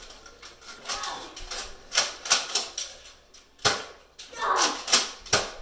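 Toy Nerf blaster firing foam darts: a string of sharp clicking shots at uneven intervals.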